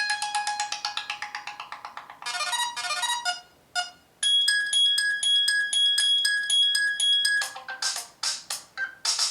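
Stock ringtones of the HTC Dream (T-Mobile G1) playing one after another. A fading run of quick electronic notes is followed by a short melody and a brief pause. Then a steady pulsing two-tone beep runs for about three seconds, and near the end another quick-note tune begins.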